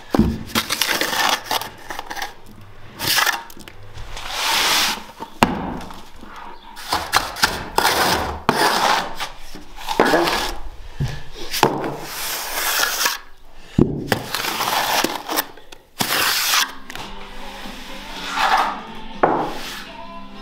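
Hand tools working wet cement render on a stone wall: a trowel and brush scraping and rubbing render on the wall and off a plasterer's hawk, in irregular gritty strokes about a second apart.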